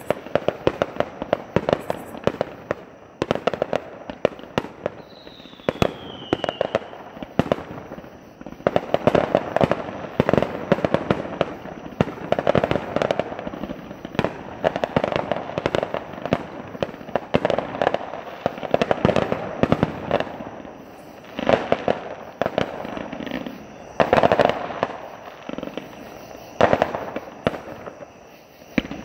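Fireworks display: aerial shells bursting in quick succession, dense booms and crackling throughout, with a brief falling whistle about five seconds in.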